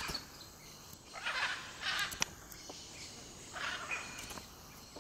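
Rainforest ambience: a steady background of insects, broken by a few short rustles in the undergrowth and a single sharp click just after two seconds.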